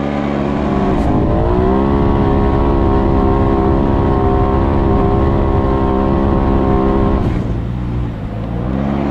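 Turbocharged side-by-side UTV engine under hard throttle on loose dirt. The revs climb about a second in and hold steady at a high pitch, drop off about seven seconds in, then climb again near the end.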